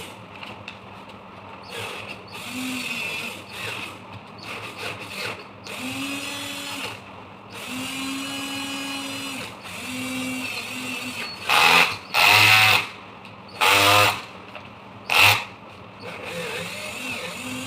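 Cordless battery drill's motor run in short trigger bursts: quieter low hums that start and stop, then four loud bursts in the middle of the stretch.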